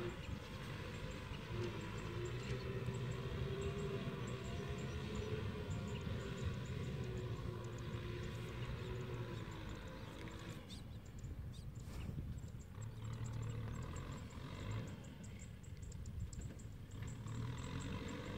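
Tractor engine running at a distance, its pitch wavering up and down, briefly easing off past the middle before picking up again.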